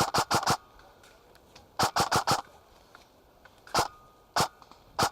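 Airsoft gun firing short volleys: four quick shots, another four about two seconds in, then single shots spaced out toward the end.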